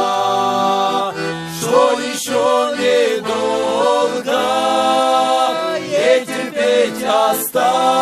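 A male vocal trio sings a slow Christian song in harmony, holding long notes, accompanied by a piano accordion.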